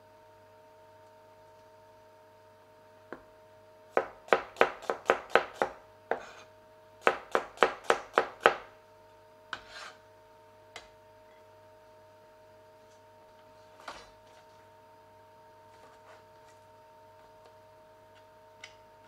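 Chinese cleaver slicing a garlic clove on a plastic cutting board: two quick runs of chops, about four a second, followed by a few single knocks of the blade on the board.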